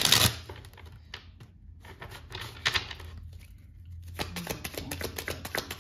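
A deck of tarot cards being shuffled and handled: runs of quick crisp clicks, the loudest right at the start, another spell about two seconds in, and a longer, denser run near the end.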